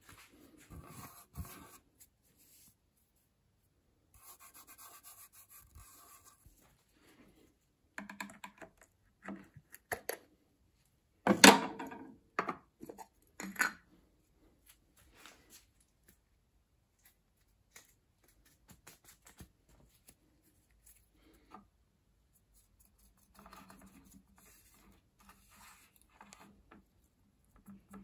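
Hands handling a wooden board and a tin of wood filler: scattered short scrapes, rubs and light knocks, with one sharp knock about eleven seconds in and a stretch of rubbing on the wood near the end.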